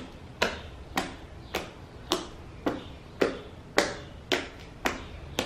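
Blue shampoo-and-toothpaste slime clicking as fingers press into it: a steady run of about ten sharp pops, roughly two a second.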